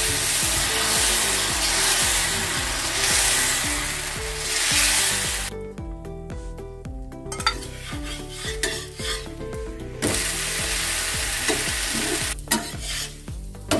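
Dosa batter sizzling on a hot iron dosa tawa as a ladle spreads it out in a spiral. The sizzle is strong at first, drops away for a few seconds in the middle, then rises again for a couple of seconds before fading near the end.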